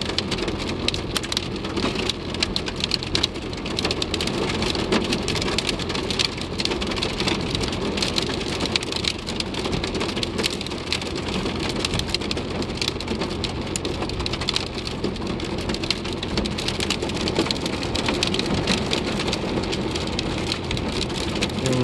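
Hail and heavy rain pelting the car's roof and windows, heard from inside the car: a dense, steady patter of sharp ticks.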